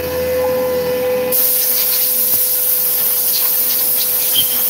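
Langmuir Systems MR-1 CNC mill cutting mild steel with a carbide six-flute end mill at 5,000 RPM: a steady whine from the flutes striking the steel. About a second in, a compressed-air blow gun starts a loud hiss over the cut, clearing chips, and it stops abruptly at the end.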